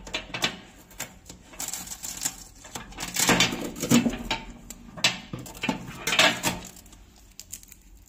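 Hands handling a light plastic microwave roller ring inside the oven cavity: irregular clicks and clatter of plastic against the cavity, with several stretches of rustling as the packing tape is pulled off.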